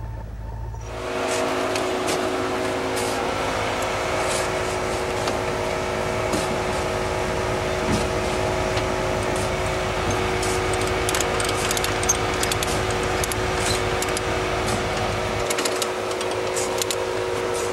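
Off-road 4x4's engine running at a steady pitch, with scattered clicks and crackles over it.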